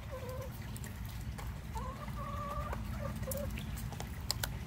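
Hens calling softly while they feed: a few short low notes near the start and a longer drawn-out note about two seconds in, with sharp taps of a beak pecking pellets in a plastic bowl near the end, over a steady low rumble.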